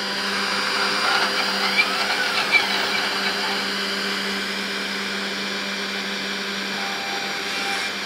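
The 500-watt spindle of a Lunyee 3018 Ultra desktop CNC router running with a steady hum, its V-bit engraving into a thin metal disc taped to the bed.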